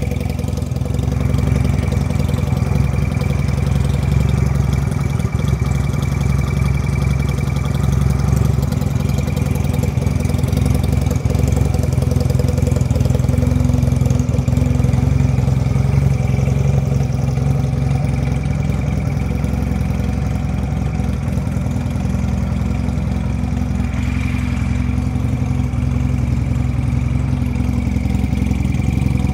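Benelli Patagonian Eagle 250 V-twin idling steadily, loud through a split left-and-right exhaust.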